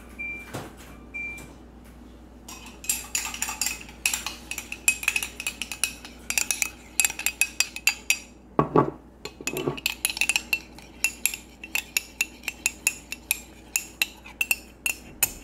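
A metal spoon stirring quickly in a cup and clinking against its sides, dissolving coffee. It is a rapid run of clinks that starts about two and a half seconds in.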